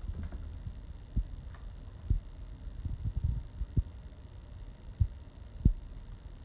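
Soft low thumps, about half a dozen at irregular intervals over a low rumble, the sharpest near the end.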